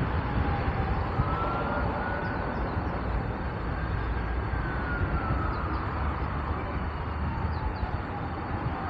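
Steady road traffic noise from passing cars, with a siren wailing slowly up and down over it: it rises in the first second or so, holds, falls over several seconds and starts rising again near the end.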